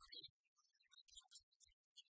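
Near silence, with only faint scattered ticks and soft low knocks.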